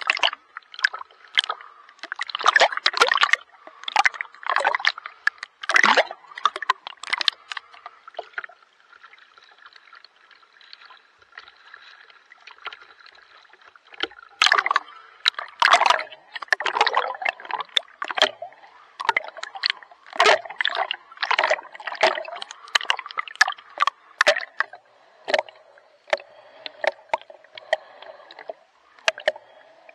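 Water splashing and sloshing in quick, irregular bursts from a swimmer's strokes, with a quieter spell of several seconds about a third of the way through.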